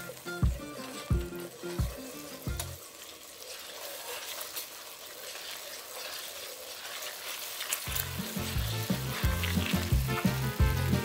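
Soy-sauce braising sauce sizzling and bubbling in a wok as a wooden spoon stirs through it. Background music with a bass beat plays over it, dropping out from about three to eight seconds in.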